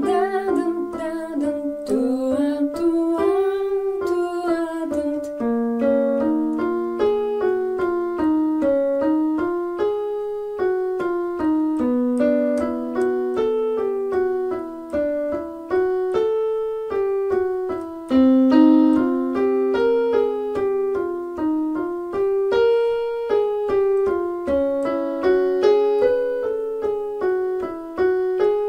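Piano accompaniment for a jazz vocal warm-up: a short phrase repeated about every six seconds, each time a semitone higher. A singing voice with gliding notes is heard in the first few seconds.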